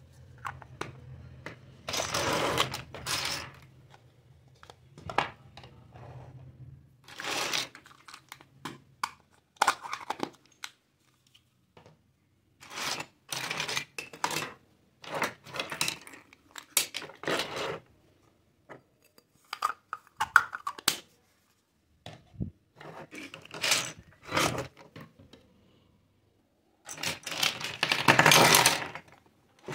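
Hollow plastic toy kitchen pieces and play food clattering and clicking as they are picked up, knocked together and set down on a table, in irregular bursts with short pauses. The longest and loudest rattle comes near the end, as a basket full of plastic play food is lifted.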